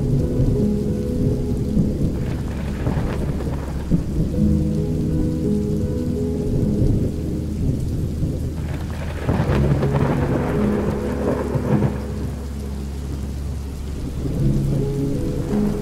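Thunderstorm: steady rain with a deep, continuous thunder rumble, swelling louder about two seconds in and again around nine seconds in. Held low musical notes sound underneath.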